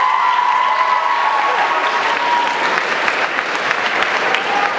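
Audience applauding, dense steady clapping, after a spoken-word poem ends. A long, high held whoop rides over the clapping for the first two to three seconds.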